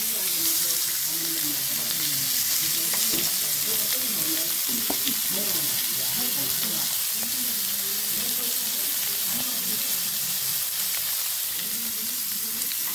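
Pork belly (samgyeopsal) sizzling as it grills: a steady hiss of frying fat.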